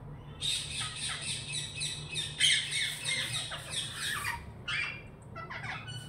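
Rose-ringed parakeet calls: a fast run of harsh, screeching squawks, several a second, lasting about four seconds, then a shorter burst near the end.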